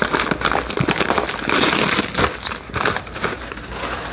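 Irregular crinkling and crackling of a plastic stuffing-mix pouch being handled and opened.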